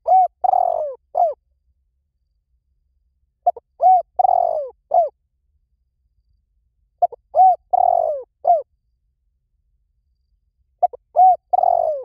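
Spotted dove cooing, used as a lure call for wild doves. The same phrase of a few low coos, one longer coo falling in pitch, repeats about every three and a half seconds.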